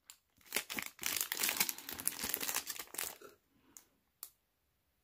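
Clear plastic bag crinkling as it is handled and turned over, a run of crackles lasting about three seconds, followed by a couple of faint clicks.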